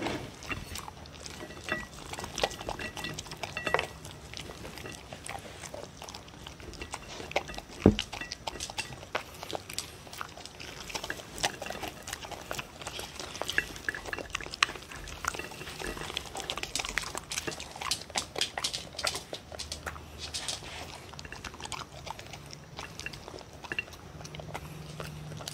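Dogs eating dry kibble from a plate: irregular crunching, chewing and wet mouth-smacking, with small clicks of food and snouts against the plate. A single sharp knock stands out about eight seconds in.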